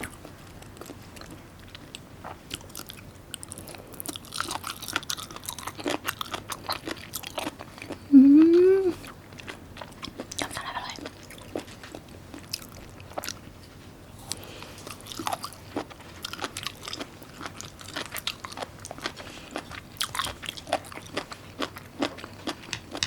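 Close-miked chewing and biting of food, with crunches and small mouth clicks throughout. About eight seconds in comes a brief rising hum in the voice, the loudest sound.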